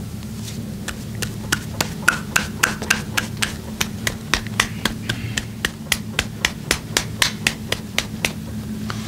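Percussive massage done with the hands: a long, even run of sharp slaps or taps, about three to four a second.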